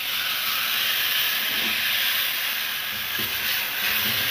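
Hamburger patty frying in a small pan of hot grease: a steady sizzling hiss.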